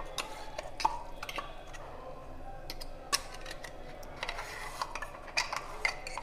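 Stainless-steel mixer-grinder jar and steel bowl clinking and tapping lightly as thick ground peanut chutney is scraped out of the jar: a scatter of single sharp clinks, a few seconds apart.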